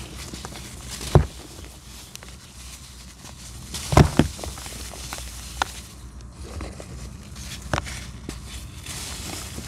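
Molded discs of dry black sand being crushed and crumbled by gloved hands: a steady gritty crunching and trickle of grains, broken by sharp cracks as chunks snap. One crack comes about a second in, a louder double crack around four seconds, and a smaller one near eight seconds.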